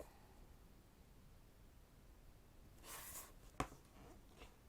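A photobook page being turned: a brief paper rustle about three seconds in, followed by a single sharp tap, with near silence around it.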